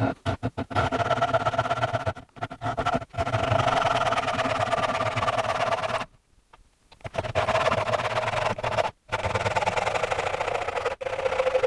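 Hand saw cutting through two pallet boards taped together, in quick continuous strokes with a rasping, ringing tone. It stops briefly several times, longest about six seconds in.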